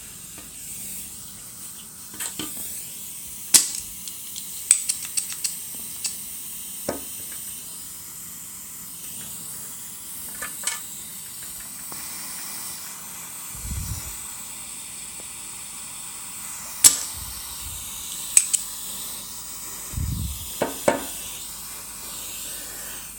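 Desoldering at a circuit board, clearing solder from a switch's through-holes: a faint steady hiss and sizzle, broken by about a dozen sharp clicks and a couple of low thumps from the tools.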